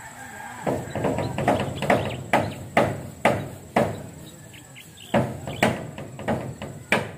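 A digging tool striking into earth fill again and again, about two blows a second, with a short pause in the middle.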